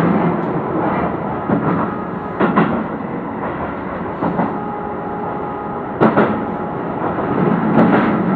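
Keio Line electric train running, heard from inside the front car: a steady running rumble with several short knocks of the wheels over rail joints, the sharpest about six seconds in.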